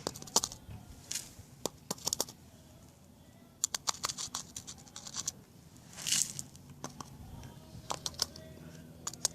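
Dry patio sand poured from a funnel into a concrete crack: irregular clusters of light ticks and pattering as the grains land, with a short hiss about six seconds in.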